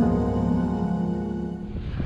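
Ambient instrumental background music of sustained tones, fading out near the end.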